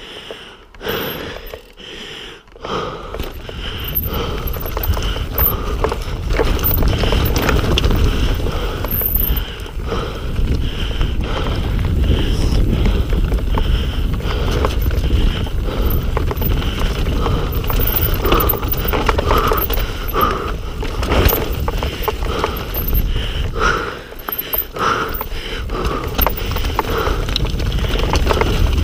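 Mountain bike rolling fast over a rough trail: tyre noise and a steady low rumble, with the chain and frame rattling in many small clicks and knocks. It is quieter and broken for the first few seconds, then steady and loud from about four seconds in.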